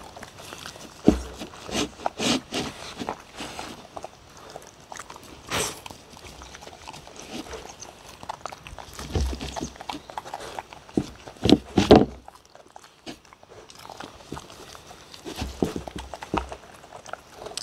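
Two dogs eating from wooden bowls: licking and chewing, with irregular knocks and scrapes of the bowls against the wooden table, the loudest about a second in and twice near the twelve-second mark.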